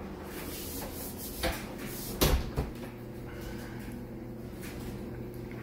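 A few short knocks and clunks, the loudest a little over two seconds in, over a steady low hum.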